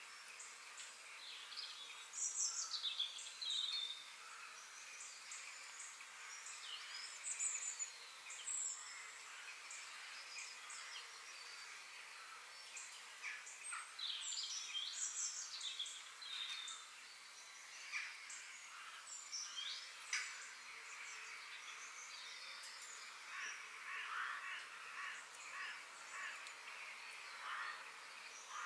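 Several forest birds singing and chirping at once: many short calls and sweeping notes, scattered over a faint steady hiss.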